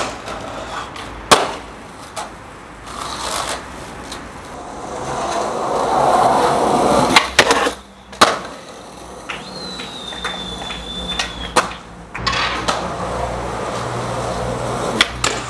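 Skateboard wheels rolling over stone paving, the rumble building for a few seconds, with sharp clacks of the board popping and landing, twice close together about halfway through and again near the end.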